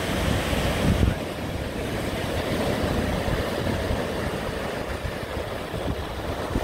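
Surf breaking and washing up the beach, with wind buffeting the microphone as a low rumble. A loud low thump about a second in.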